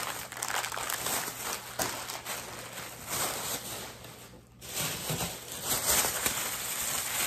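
Plastic grocery bags and packaging rustling and crinkling as groceries are handled, with small knocks and a short lull about four and a half seconds in.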